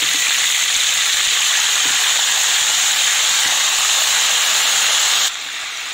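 Chicken pieces deep-frying in hot oil in a pan, a loud steady sizzle. About five seconds in it drops suddenly to a quieter sizzle.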